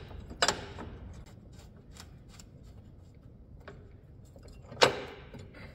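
Steel steering sector gear and its mounting bolt being handled and fitted against the lawn tractor's frame: light metal clicks and rubbing, with a sharp knock about half a second in and a louder one near the end.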